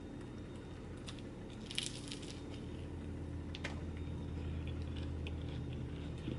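Someone drinking juice from a bottle or cup: small clicks and mouth sounds over a low steady background hum.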